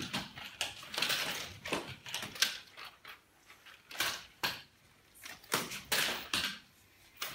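Nunchucks being swung, making a string of irregular whooshing swishes, with a few sharp knocks in between.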